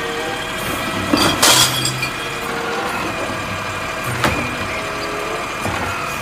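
An automated side-loader garbage truck idling while its lifting arm works, emptying a wheelie bin into the hopper and setting it back down. A loud rattling burst about a second and a half in as the bin is tipped, and a sharp knock about four seconds in.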